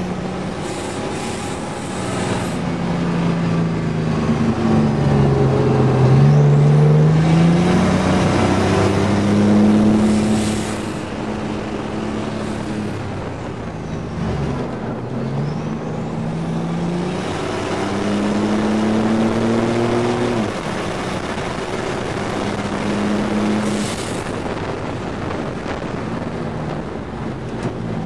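GMC Syclone's turbocharged V6 heard from inside the cab under hard track driving, the revs climbing under acceleration and falling back at shifts and corner entries several times over, with a sharp drop about twenty seconds in.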